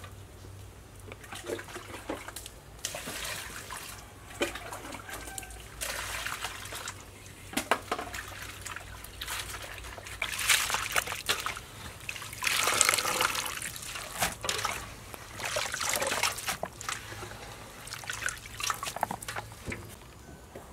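Hands swishing and squeezing shredded vegetables in water in a metal basin, with irregular sloshes and small splashes, loudest about halfway through.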